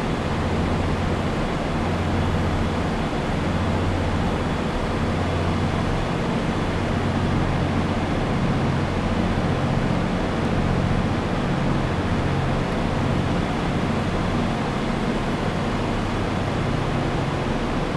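Steady rumble and hiss of trains standing at a station platform, with a low engine hum that swells and fades.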